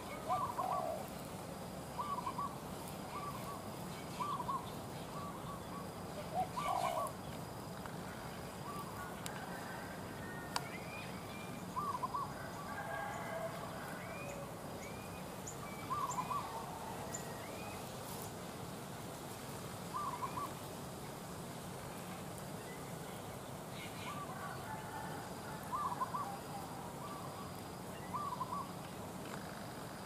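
Spotted doves cooing: short, paired coos repeated every few seconds. A few faint, rising chirps from other small birds come in around the middle.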